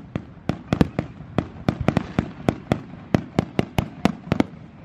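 Firecrackers popping in a rapid, steady string, about four to five sharp cracks a second, some louder than others.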